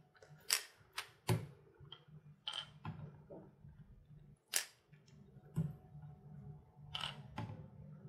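Irregular light clicks and taps, about nine in all, as a hard-plastic minnow lure with treble hooks is handled and knocks against a plastic tub of water.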